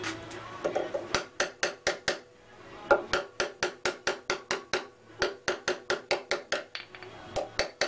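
A small hammer taps a thin steel plate down into a slot in a pressed laminated steel core, making quick light metal-on-metal taps about four a second, with a short pause a couple of seconds in.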